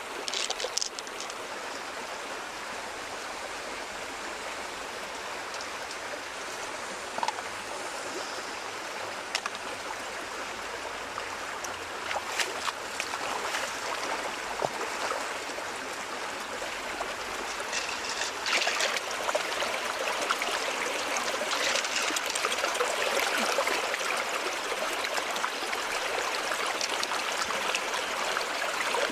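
Shallow stream running over rocks: a steady rushing of water that gets louder about two-thirds of the way in, with a few short sharp splashes or knocks.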